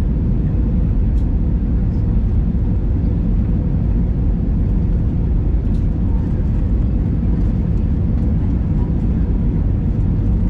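Airliner cabin noise: a steady, unchanging low rumble of jet engines and rushing air, with a faint constant hum and a few light ticks.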